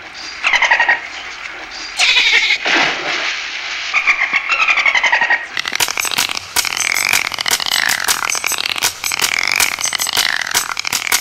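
Dolphins whistling, in high calls that glide up and down. From about halfway, rapid trains of echolocation clicks join the whistles.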